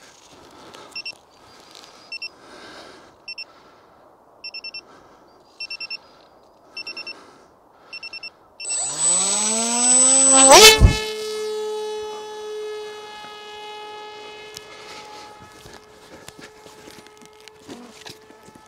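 AR Pro FPV flying wing on iNav autolaunch: its beeper chirps in short groups of high beeps about once a second, then the electric motor and propeller spin up with a rising whine. About ten and a half seconds in there is a sharp, loud whoosh as the wing is hand-launched, and the motor then holds a steady pitch that fades as the plane climbs away.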